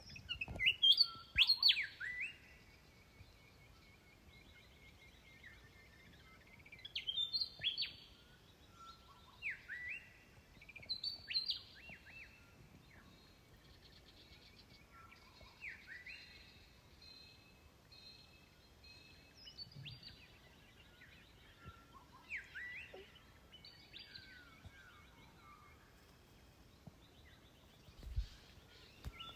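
Birds calling outdoors: short, sharp calls that slide downward, in bursts every few seconds, loudest in the first two seconds, over a faint steady trill.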